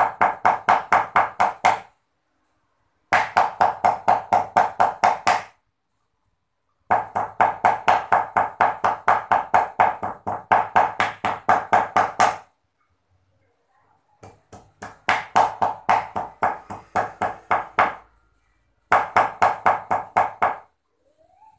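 Meat cleaver mincing raw pork on a round wooden chopping block for laab: rapid, even chops about five a second, in five runs broken by short pauses.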